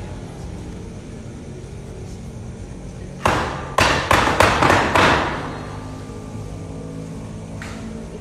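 Wooden frame knocked against a stage floor: one sharp knock, then a quick run of five more, about three a second, over a steady low hum.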